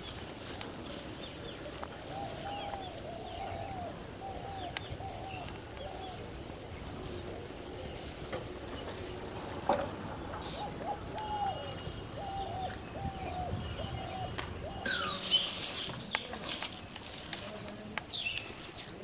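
Birds calling: one bird repeats a quick run of short, mid-pitched notes, twice, while other birds chirp higher up. A louder call with a falling note comes near the end, over a faint steady high-pitched whine.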